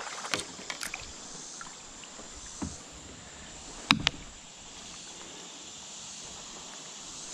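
Plastic sit-on-top kayak being paddled on a flowing river. A steady hiss of moving water runs under a few light clicks in the first second and one sharp knock about four seconds in, the loudest sound, of the kind a paddle or rod makes against the hull.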